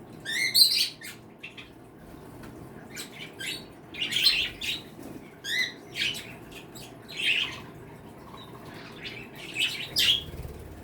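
A mixed flock of pet birds calling: scattered chirps and short squawky calls, some sweeping up in pitch, every second or so.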